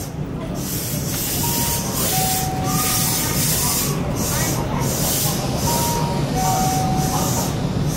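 Two-tone chime, a higher note then a lower one, sounding twice about four seconds apart, over the steady low hum of a stopped 8300 series electric train and a hiss that keeps starting and stopping.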